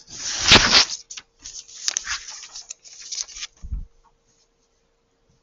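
Paper pages of a packet being turned: a loud rustle as the sheet is flipped over in the first second, more rustling and crinkling for a couple of seconds, then a soft low thump as the page is laid flat.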